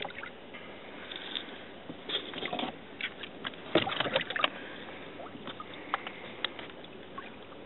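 Water splashing and sloshing in a boat's livewell as a hand reaches in and handles white crappies, with irregular splashes and knocks, the loudest bursts about two and four seconds in.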